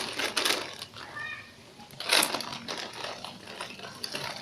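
Rustling, clicking and knocking as squishy toys and their packaging are handled and picked through, with a loud rustle about two seconds in and a brief high-pitched tone about a second in.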